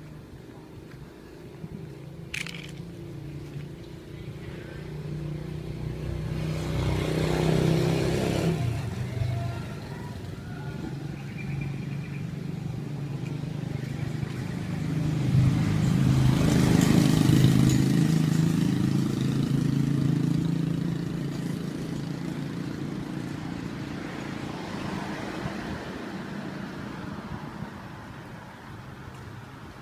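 Motor vehicles passing along the street: one engine swells and fades about seven to eight seconds in, then a louder one passes between about fifteen and twenty-one seconds in, over a steady traffic hum. A single short click about two seconds in.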